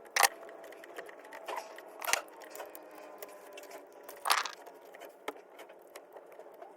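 Three sharp knocks, about two seconds apart, from hand-tool work during the outlet installation.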